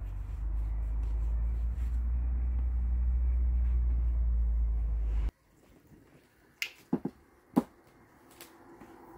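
A low, steady rumble that cuts off suddenly about five seconds in, followed by a few sharp clicks and knocks from hands working in a plastic bowl of flour and salt water.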